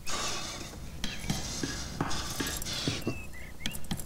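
A chicken giving a few short clucks and squawks, among light knocks and rustling.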